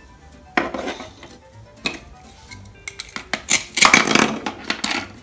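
Plastic toy food clattering and knocking on a plastic cutting board as halves of a Velcro-joined toy corn are handled. Near the end a toy knife cuts a Velcro-joined toy cabbage apart with a rasping Velcro rip, the loudest sound. Soft background music plays under it.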